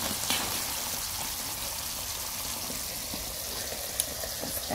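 Steady sizzling hiss of chopped beef cooking in its juices in a frying pan, with one light click about four seconds in.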